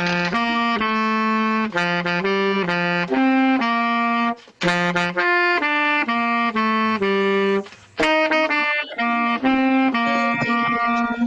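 Instrumental music: a single melody line of separate held notes, with two brief pauses about four and a half and eight seconds in.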